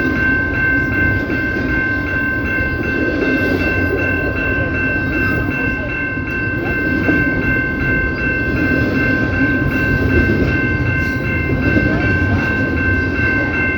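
CPKC train rolling by with a steady rumble and clatter of wheels on track. Over it sits a steady high-pitched ringing squeal of several tones that never lets up.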